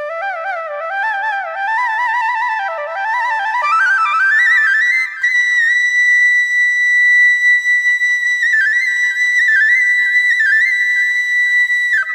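Background music: a flute melody that climbs in quick ornamented runs over the first few seconds, then holds a long high note decorated with small trills.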